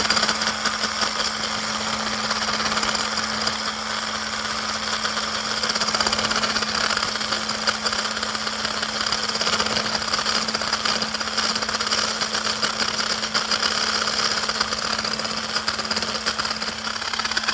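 Handheld electric milk frother running steadily, its whisk whipping instant coffee, sweetener and hot water in a bowl toward a thick froth. It makes a constant motor hum under a dense whirring hiss.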